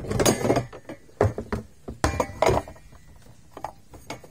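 A series of irregular knocks and clinks, some in quick clusters, with short quiet gaps between.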